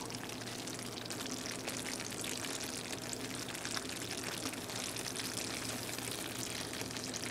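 Ground beef, rice and sauce simmering in a frying pan: a steady, quiet sizzle with fine bubbling crackles.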